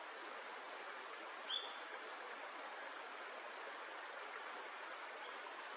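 Steady rushing of a stream. About one and a half seconds in, a single short, high bird chirp.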